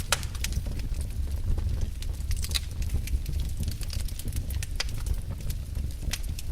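Wood fire burning in a fireplace: irregular crackles and sharp pops over a steady low rumble.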